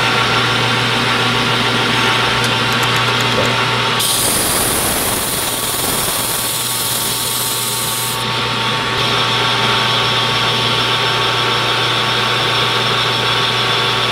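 Metal lathe running steadily, its motor and gearing giving a constant hum. From about four seconds in, abrasive cloth held against the spinning steel shaft adds a loud hiss for four to five seconds.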